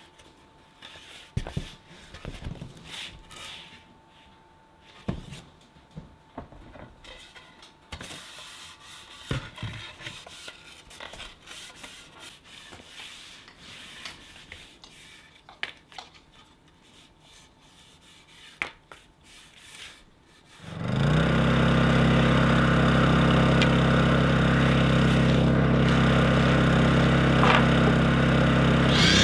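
Pine trim boards being rubbed down with a rag and handled, with scattered light knocks of wood on wood. About twenty seconds in, a steady, much louder engine hum sets in: a Honda portable generator running.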